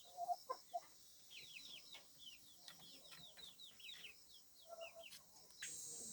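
Faint domestic fowl calling: a few short clucks and many quick, high, downward chirps. A steady high insect trill from crickets starts near the end.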